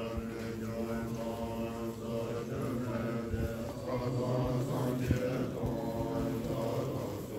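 Several voices reciting a Buddhist prayer together as a chant, held on steady low notes with no break.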